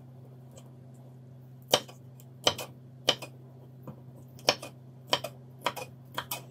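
Kitchen knife chopping red bell pepper on a thick wooden cutting board: a series of sharp knocks of the blade striking the board, irregular at roughly two a second, some in quick pairs, starting after about a second and a half.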